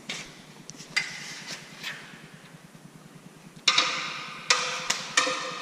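A series of sharp knocks with a brief ringing after each: one about a second in, then a louder run of four in quick succession in the second half.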